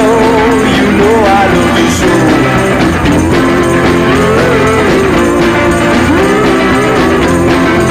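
Loud background music: a rock-style track with a wavering melody line over steady held chords.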